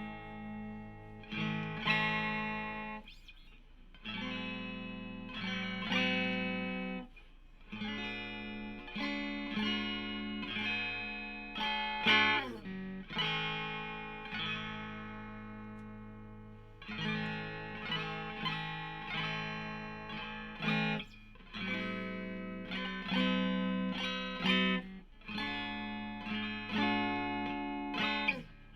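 Electric guitar being played: chords and notes struck and left to ring out in short phrases, with a downward pitch bend about twelve seconds in.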